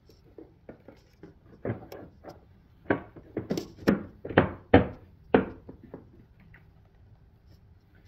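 About ten hard plastic knocks and clunks in a quick irregular run, from the battery cover and the battery maintainer screwed to it being handled and pressed back into place, the loudest near the end of the run.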